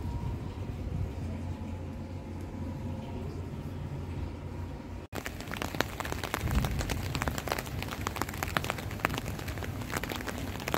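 A steady low rumble with a faint hum. About five seconds in, an abrupt cut brings dense, irregular ticking and crackling of rain falling on a hard surface.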